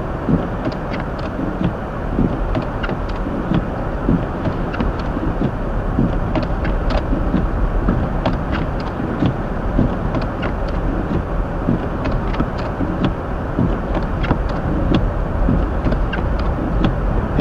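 Car driving on a snow-covered road, heard inside the cabin of a Hyundai Elantra: steady road and tyre noise with many small scattered ticks and clicks.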